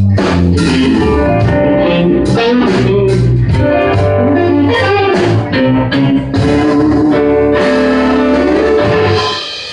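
Live blues band playing an instrumental passage between sung lines: guitar over a steady bass line, with no singing.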